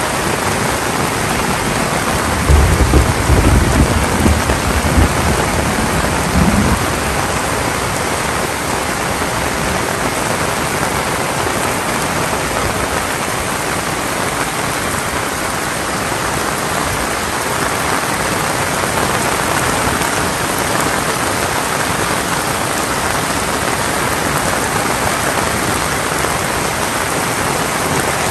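Heavy rain falling steadily, an even hiss throughout. A low rumble comes through in uneven pulses between about two and seven seconds in.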